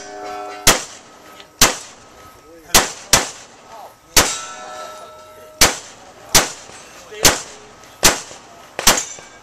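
Glock pistol shots fired one at a time in a practical shooting stage, about ten at uneven intervals of roughly a second. A metallic ringing follows two of the shots, one at the start and one about four seconds in.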